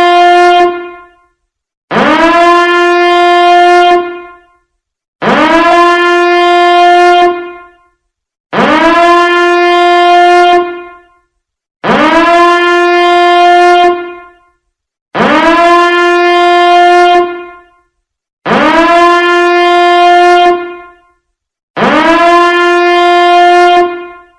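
A loud, buzzy horn blast that slides up in pitch at the start, holds one steady note for about two and a half seconds, then dies away. It repeats about every three seconds, a sound effect played over and over, with the same blast sounding eight times.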